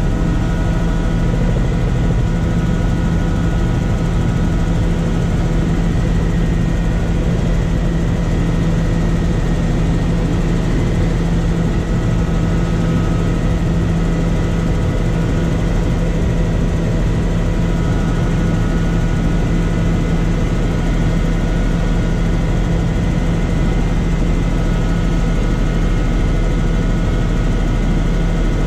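Helicopter engine and rotor noise heard inside the cabin in flight: a loud, steady low drone with a constant high whine over it.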